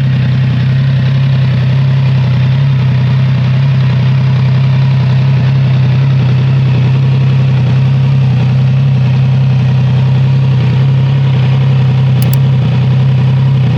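Triumph Trident 660's inline three-cylinder engine idling steadily after a cold start, heard through its exhaust.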